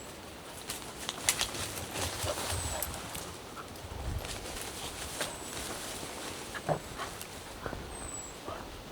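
Footsteps and small twigs crackling on the forest floor, with soft thuds of steps. A bird gives a thin, very high, short falling call four times, a few seconds apart.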